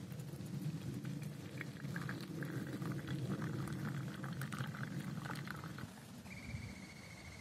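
Water bubbling at the boil on a camp stove, over a steady low rumble. The rumble stops about six seconds in, and a steady high tone starts just after.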